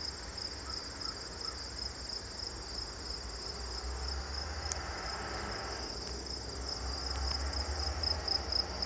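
Chorus of crickets chirping in a fast, even, high-pitched pulse, over a low rumble.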